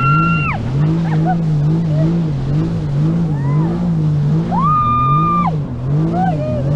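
Jet ski engine running, its pitch wavering up and down about twice a second. Two held high-pitched tones of about a second each sound over it, one at the start and one about five seconds in.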